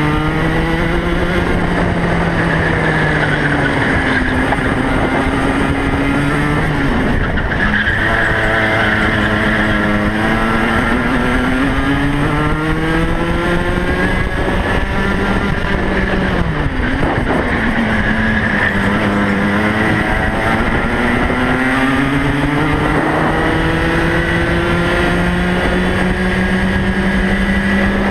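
Racing kart's two-stroke engine heard onboard at full race pace. Its pitch climbs steadily as it accelerates down each straight, then drops sharply under braking into the corners, about five times over, with wind and track noise underneath.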